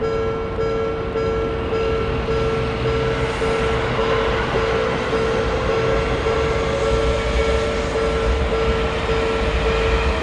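Japanese railroad crossing alarm ringing a repeated electronic bell tone, about one and a half strikes a second, while a train runs past with a rumble that swells about two seconds in.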